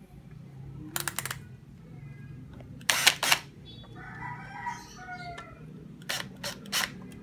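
Makita cordless drill driving screws into the wall through a clear plastic vacuum dock, in three short bursts of rapid clicking, the loudest about three seconds in.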